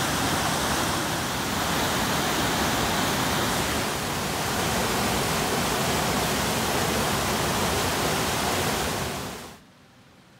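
Whitewater of a mountain river cascading over boulders: a steady, loud rushing that cuts off abruptly near the end.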